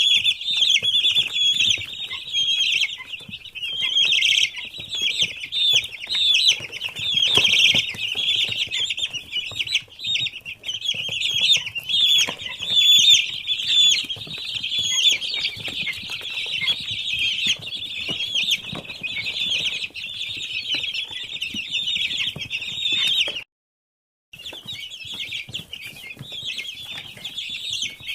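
A large flock of 19-day-old chicks peeping continuously, a dense chorus of many overlapping high peeps. It breaks off completely for under a second about 23 seconds in.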